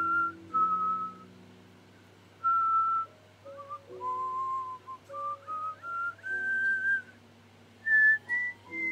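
A woman whistling a tune: clear single notes held and sliding from one to the next, in short phrases with brief pauses between them. Faint background music with low held notes plays underneath.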